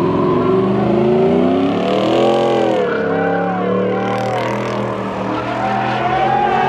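A car engine revving up and down several times while the car spins its tyres, with tyre squeal.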